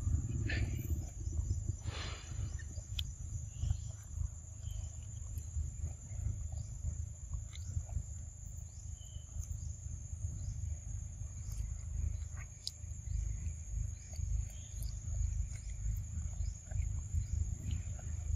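Forest ambience: a steady high insect drone, with a low fluctuating rumble underneath and scattered short chirps.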